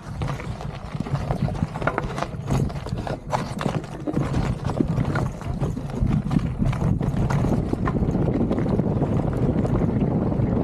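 Polygon Siskiu mountain bike clattering over loose rock, with irregular knocks and rattles of the bike and tyres on stones. About eight seconds in the clatter gives way to a steadier low rush of tyre and wind noise on the microphone as it rolls onto smooth sand.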